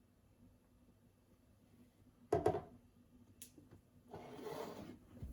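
Kitchenware being handled: a hard knock with a short ring about two seconds in, a light click, then about a second of soft rushing noise near the end.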